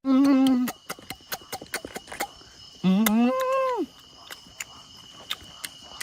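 A man hums "mmm" twice with his mouth closed, briefly at the start and again about three seconds in with a rising-then-falling pitch, amid many sharp clicks. A steady high insect tone, like a cricket, runs underneath.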